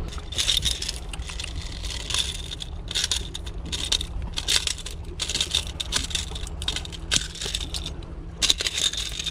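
Metal clinking and jangling in irregular bursts: pliers and a lure's hooks rattling while a small barracuda is unhooked, over a steady low rumble.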